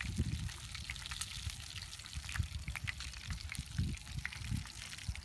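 Fish frying in hot oil in a pan: a steady sizzle with scattered pops and crackles, over a low uneven rumble.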